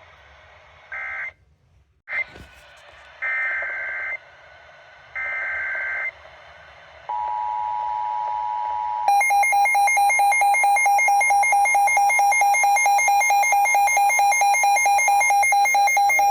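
Emergency Alert System tones on NOAA Weather Radio, marking the start of a new warning. It begins with short bursts of the screechy SAME digital header data. Then comes the steady two-tone attention signal, and from about nine seconds in a loud, rapidly pulsing electronic alarm beep that stops suddenly at the end.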